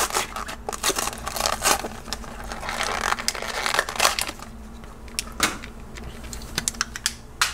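Cardboard blister card being torn and peeled away and the clear plastic blister crinkled as a die-cast toy car is worked out of it. Rustling and crackling is busiest in the first few seconds, followed by a few sharp plastic clicks near the end.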